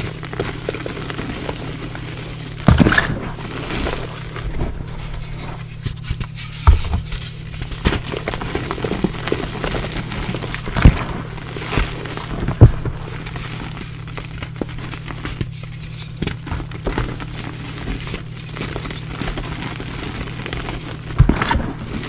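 Blocks of gym chalk crushed and crumbled between bare hands into loose chalk powder: irregular soft crunches and crumbling, with a few sharper, louder crunches about three, eleven and thirteen seconds in and again near the end.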